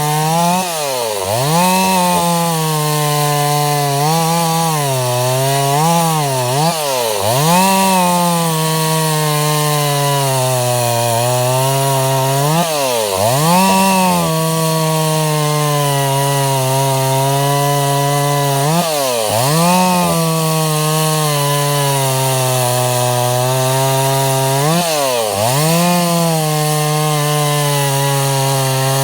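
Freshly rebuilt Stihl 026 two-stroke chainsaw running at high speed while cutting into a log, its engine note dipping and recovering every few seconds as the chain takes load. The saw is being broken in on its new cylinder and piston.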